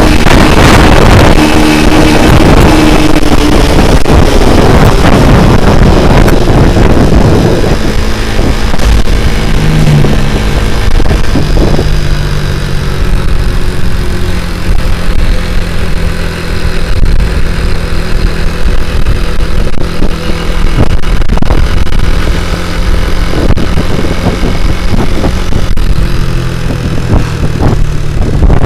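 Small single-cylinder four-stroke Honda Grand engine in a Honda C70 motorcycle running under way, its pitch shifting with the throttle over a heavy low rumble.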